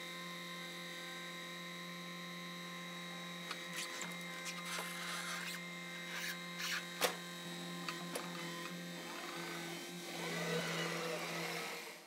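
Compact track loader's diesel engine running steadily with an even hum. Several knocks between about four and seven seconds in, the loudest near seven seconds, as a large tree root is set down onto the steel deck of a flatbed trailer.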